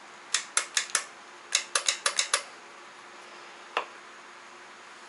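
Warn VR8 winch's control-pack solenoids clicking sharply as the remote switch is worked, in quick clusters with a last lone click, while the winch motor does not run. This is the bad clicking with no power in or out that marks the fault.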